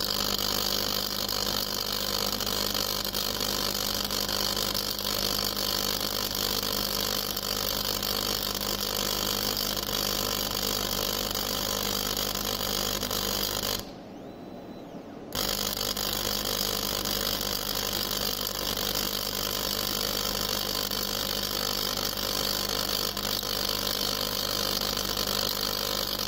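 Atmospheric plasma module on a small CNC running, fed by its small internal air pump: a steady hum with a hiss. The sound drops out briefly about halfway through.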